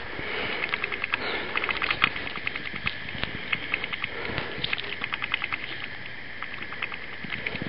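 Raccoon chewing and slurping at a watermelon rind, in a few soft, wet bites. Through it runs a fast, regular clicking in short trains.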